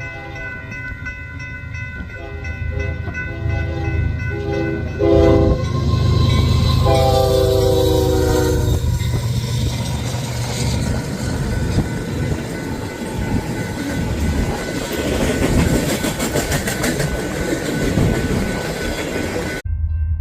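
Union Pacific diesel locomotive horn sounding a run of short blasts, then one longer blast, over the deep rumble of the engines. The train then rolls past, its wheels clacking over the rail joints.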